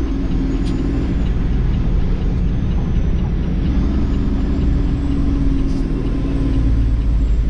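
Semi truck's diesel engine running, heard inside the cab, with a faint steady ticking of the turn signal.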